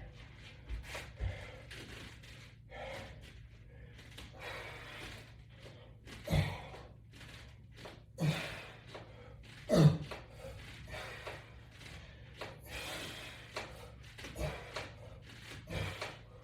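A man breathing hard as he works through resistance-band pulls, with audible exhales. Several short knocks from the exercise equipment come at irregular moments.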